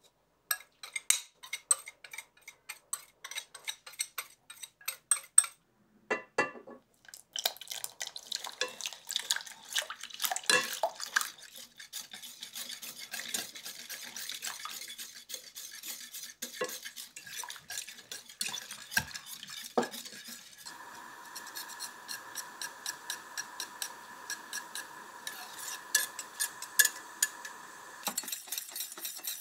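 A metal wire whisk ticks quickly against a small coated saucepan as it stirs dry cornstarch, agar and sugar. Coconut milk is then poured in and whisked, giving a softer, wetter stirring sound. In the last third a steady high hum runs under the whisking.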